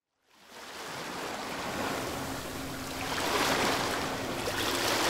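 Sea waves washing, fading in from silence and swelling to a peak about three and a half seconds in.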